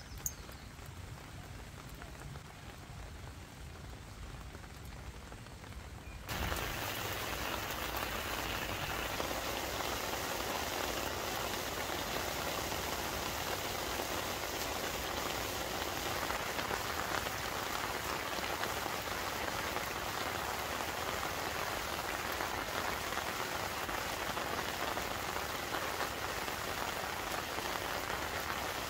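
Steady rain falling, a dense, even hiss that starts suddenly about six seconds in after a quieter stretch.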